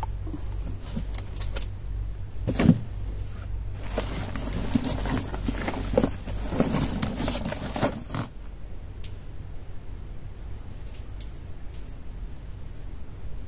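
Handling noise in a small boat as a freshly caught fish is stowed: a sharp knock, then about four seconds of rustling, scraping and knocking, which die away after that.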